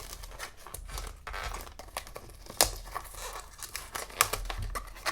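Chokorin blind box packaging being torn open and crinkled by hand: continuous rustling with sharp clicks, the two loudest about two and a half and four seconds in.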